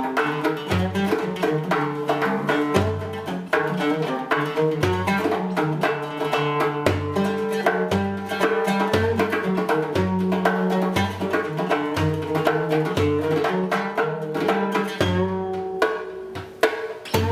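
Background music: quickly plucked string instrument over a low beat about once a second.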